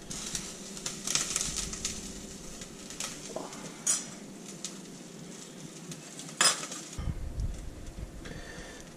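Kitchen clatter around a cast-iron pot of gumbo: rustling handling noise with two sharp clinks of utensils, about four and six and a half seconds in. Near the end a wooden spoon stirs the thick stew in the cast-iron pot.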